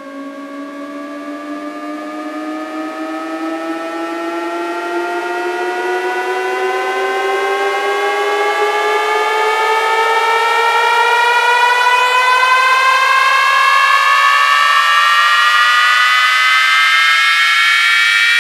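Electronic riser sound effect: a buzzy synthesized tone gliding slowly and steadily upward in pitch while swelling in loudness, with a second rising tone crossing it, building up toward a bass drop.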